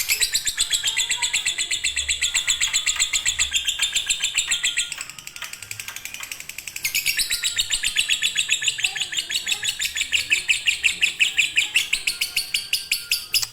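Lovebird singing a long, nonstop chattering song: a rapid string of shrill chirps that dips quieter about five seconds in, then picks up again.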